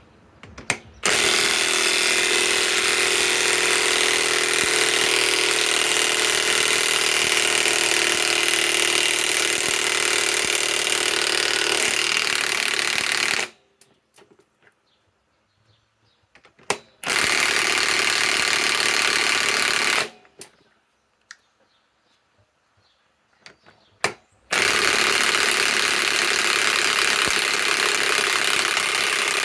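High-torque cordless impact wrench hammering, driving a long lag screw in three runs: a long one of about twelve seconds, a short one of about three seconds, then about five more near the end.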